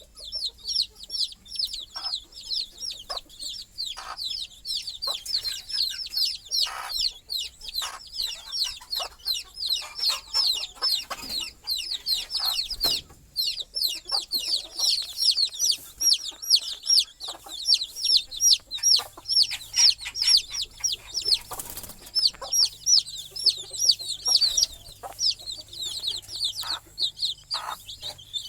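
A brood of baby chicks peeping continuously: a dense stream of rapid, high-pitched peeps from several chicks at once, with scattered short sharp knocks or flutters among them.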